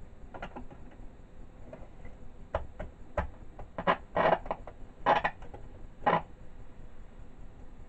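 Irregular clicks and short crackly bursts from an Ekco MPT333 transistor radio as it is handled on the bench, with the loudest few bunched between about four and six seconds in.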